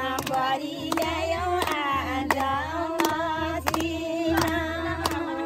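A group of women singing together in chorus, with hands clapping in a steady beat about twice a second.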